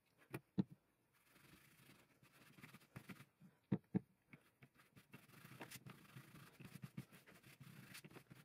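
A cloth rubbing over an old leather knife sheath on a cutting mat: a faint, soft, scratchy wiping. A few light knocks come as the sheath is handled, two near the start and two close together about four seconds in, and these are the loudest sounds.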